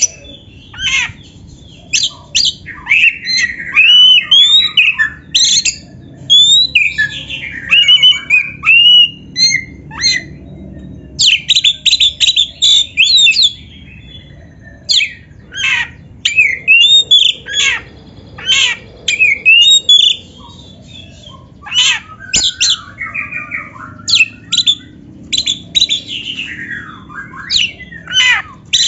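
Oriental magpie-robin (kacer) singing a loud, varied song. Bursts of rising and falling whistles and rapid chattering note strings come in phrases separated by short pauses.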